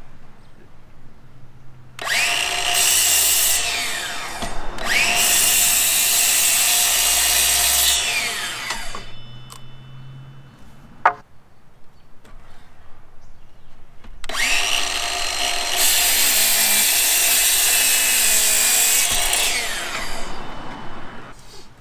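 DeWalt 20-volt cordless sliding miter saw, running on a FlexVolt battery, cutting through wooden boards twice; each cut lasts several seconds and ends with the blade winding down in a falling whine. A single sharp knock comes between the two cuts.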